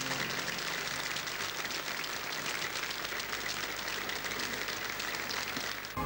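Studio audience applauding: a steady, dense patter of many hands clapping that dips just before the end.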